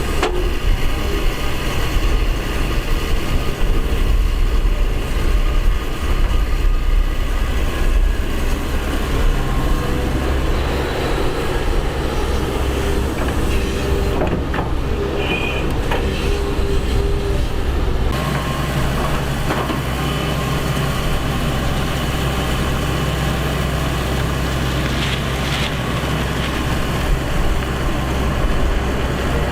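Excavator's diesel engine running steadily under load while digging, with a few short knocks; the engine note shifts about two-thirds of the way through.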